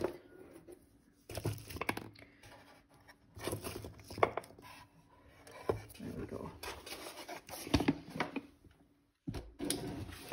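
Paper and card being handled: irregular rustling and crinkling with light taps, as sheets of stamps and stickers are sorted and pulled about on a table.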